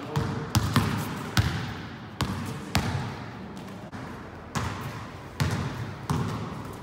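Several basketballs dribbled on a gym court: irregular, overlapping bounces, each trailing off in the echo of the hall.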